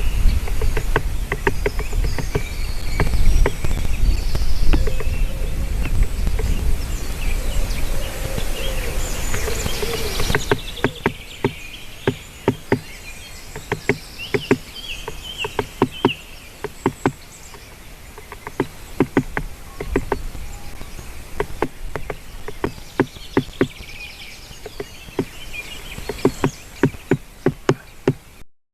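Great spotted woodpecker knocking on wood with single, irregularly spaced pecks, never a fast drumming roll. A low rumble of wind noise lies under the first third, then drops away.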